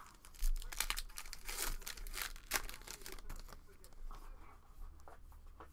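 A baseball card pack's wrapper being torn open and crinkled: a run of sharp crackles for the first three seconds or so, then fainter rustling.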